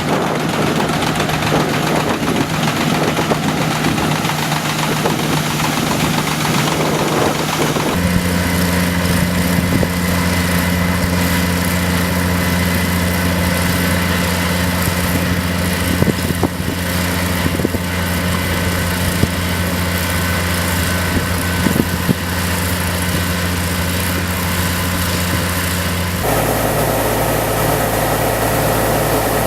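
Engine of a rice harvesting machine running steadily with a low hum, shifting abruptly to a different steady pitch about eight seconds in and again near the end.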